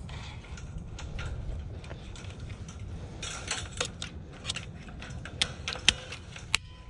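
Cable-tie tensioning gun working a zip tie around a fence sensor: scattered mechanical clicks as the handle is worked, ending in three sharp, louder clicks about half a second apart near the end.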